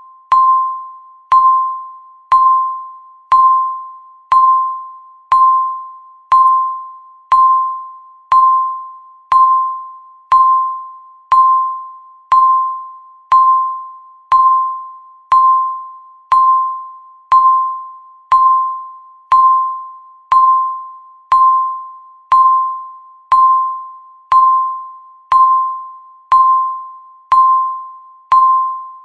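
Countdown timer's tick sound: a single short pitched ping once a second, evenly spaced, each starting sharply and fading quickly.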